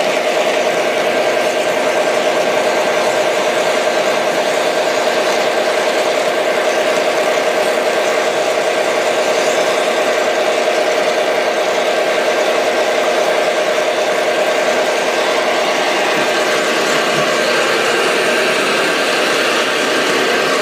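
O scale model train running along the track: a steady mechanical hum with a constant tone held at one pitch, unchanged in level throughout.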